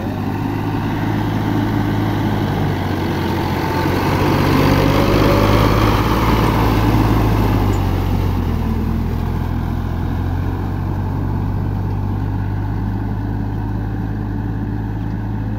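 Sonalika tractor's diesel engine running under load as it drags a disc harrow through flooded paddy mud. It gets louder as the tractor passes close about five seconds in, then eases as it moves off.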